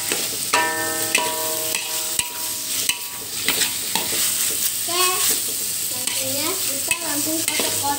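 Metal spatula stirring and scraping fried tempeh cubes around a hot wok, with the food sizzling as it fries in sweet soy sauce. Knocks of the spatula set the wok ringing briefly about a second in.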